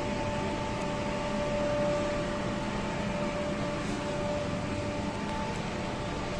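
Steady hum of running power-plant equipment: two constant whining tones over an even hiss.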